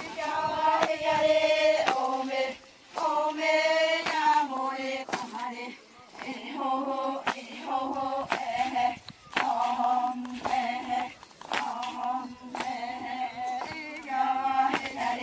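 A group of women and girls chanting together in unison, in short repeated phrases, with a sharp beat about once a second keeping time.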